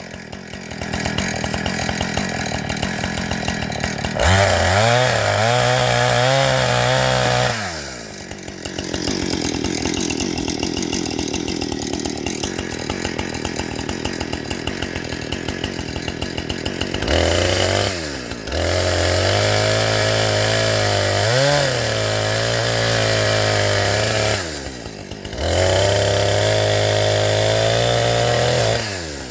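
A small engine running loud, revving up and down repeatedly, its note dropping away sharply and climbing back several times, with a rougher stretch in the middle.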